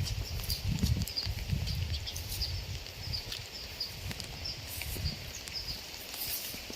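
Rain falling over rice paddies, with a short high call repeated two or three times a second, scattered drip-like clicks and irregular low rumbling.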